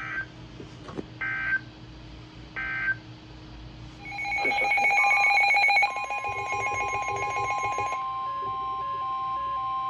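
Emergency Alert System SAME header: three short bursts of data tones about a second apart. About four seconds in, loud electronic alert tones start, settling into one steady alert tone with a beep repeating about twice a second over it, as before the next warning message.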